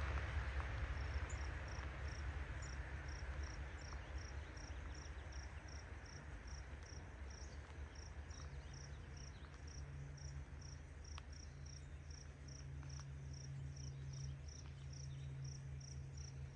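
Cricket chirping steadily at one high pitch, about three chirps a second, over a low rumble.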